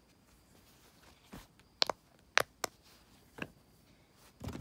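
Silicone pop-it fidget toy having its bubbles pressed: a few sharp, separate pops, the loudest about halfway through. A brief handling thump near the end.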